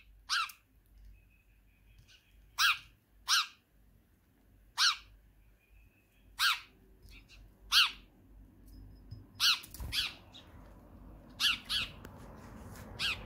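House sparrow chirping: about a dozen short, sharp chirps at irregular intervals, some in quick pairs. A faint steady hiss builds near the end.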